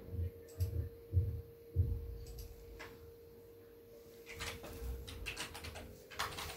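Paneer being grated on a small handheld metal grater: soft rasping strokes that come thicker and faster in the last couple of seconds. There are a few dull low thumps about half a second apart in the first two seconds, over a faint steady hum.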